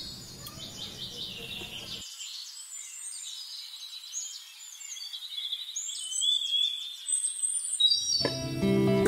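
Birds chirping and singing in quick, overlapping high calls. Acoustic guitar music comes in near the end.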